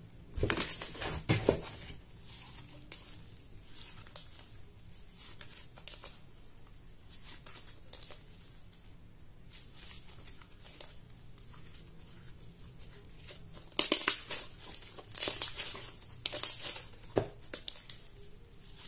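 Slime being stretched, pulled apart and squeezed by hand, giving crackling, tearing sounds in bursts, loudest just after the start and again in a cluster near the end.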